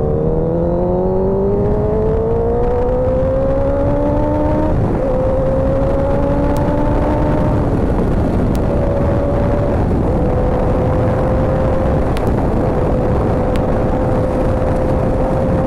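Motorcycle engine pulling up through the revs, its pitch rising over the first five seconds, then holding a steady cruise with a few small dips. A constant noisy rush of wind and road runs underneath.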